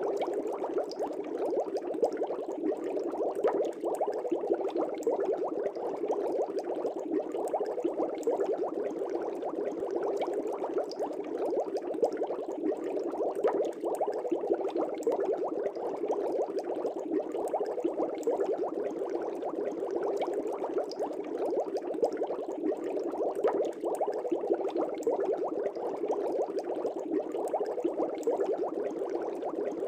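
Air bubbles streaming up through a fish tank: steady, dense bubbling with many small pops.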